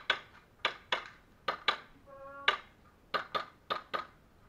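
Airsoft gun firing single shots in quick pairs and small groups, about ten sharp cracks in all, each with a short echo off hard indoor walls.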